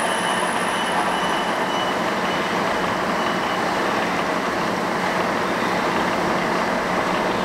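TM807A cylinder boring and honing machine running: its electric motor and spindle drive make a steady mechanical whir with a thin high whine, which fades over the first couple of seconds.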